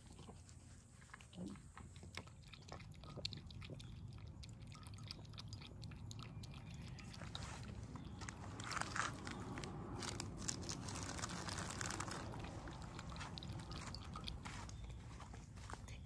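Stray cat eating: close crunching and chewing of dry kibble, then quick wet lapping of cat milk from a bowl, heard as many small clicks.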